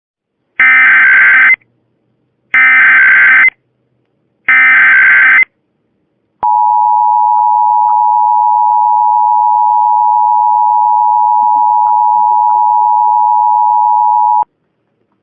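Emergency Alert System SAME header: three one-second bursts of screeching digital data tones, about a second apart. Then the EAS two-tone attention signal holds steady for about eight seconds. These are valid encoded alert tones of the kind that trigger real EAS receivers.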